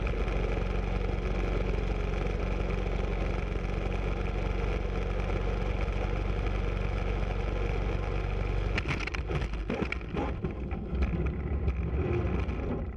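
Piston engine of a light racing plane running steadily, heard from inside the cockpit. About nine seconds in, a burst of sharp knocks and clatter as the plane hits something on the runway and tears its wing, after which the steady engine drone breaks up into uneven rumbling.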